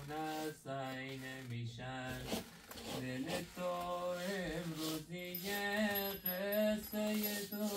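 Background music: a man's voice singing a slow, chant-like melody in long held notes.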